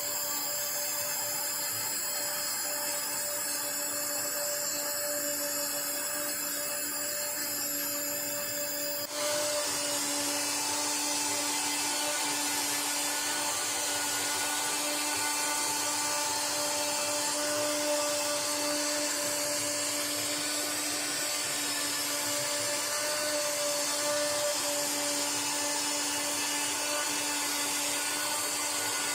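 CNC router spindle running steadily with a held whine while a conical engraving bit cuts solid ash. About nine seconds in, the sound changes abruptly and turns louder and hissier.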